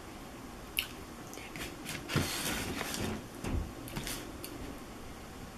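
A person biting into and chewing a fried chicken sandwich, with scattered short mouth clicks and smacks.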